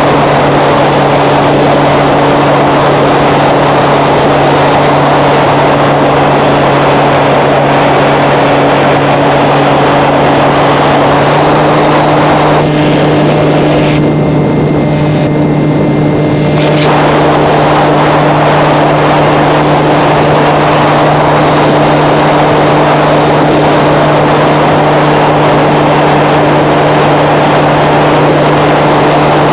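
Electric motor and propeller of an FPV model plane running steadily. Loud wind rushes over the onboard microphone. The motor's hum steps slightly higher about eleven seconds in, and the sound dulls for a few seconds midway.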